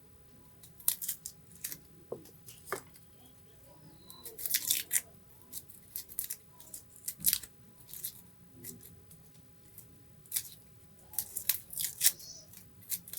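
Garlic cloves being peeled by hand: the dry, papery skin crackling and tearing in short, irregular bursts.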